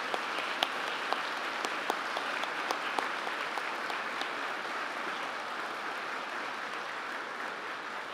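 A large crowd applauding: dense, steady clapping with individual sharp claps standing out, easing off slightly toward the end.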